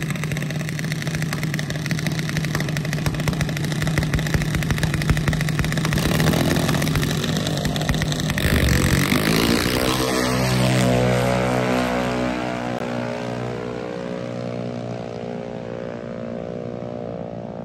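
Junior dragsters' small single-cylinder engines running steadily at the starting line. About halfway through they rev up with a rising pitch as the cars launch, then fade as they run down the drag strip.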